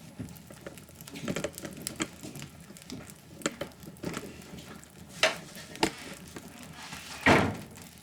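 Wood fire crackling in a fireplace: irregular snaps and pops, with a louder pop about five seconds in and the loudest one near the end.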